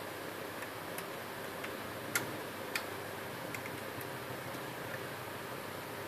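Scattered light clicks, about one every half second to a second, over a steady hiss.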